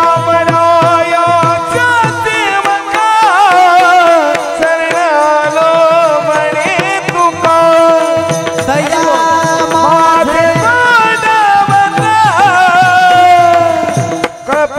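Male voices singing a Warkari devotional bhajan with long, held and ornamented notes, accompanied by brass hand cymbals (tal) and steady drum strokes.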